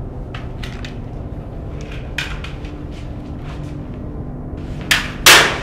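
Low, tense film-score drone with faint scattered clicks; about five seconds in, a sharp crack and then a loud burst of noise that dies away quickly.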